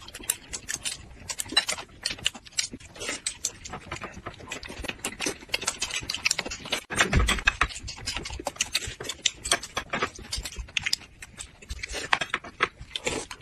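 Close-miked chewing of rolled flatbread wraps: a rapid, irregular run of wet mouth clicks, smacks and soft crunches, with a louder thud about seven seconds in.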